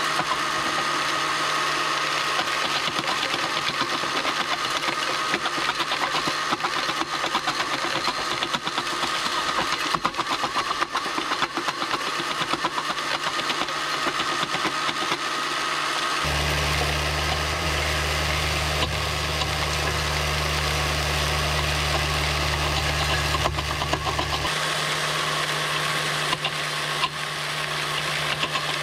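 Electric motors of a scale RC screening plant and its conveyors running with a steady whine, small stones rattling over the vibrating screen and belts. About halfway through, a deeper steady hum joins for roughly eight seconds and then stops.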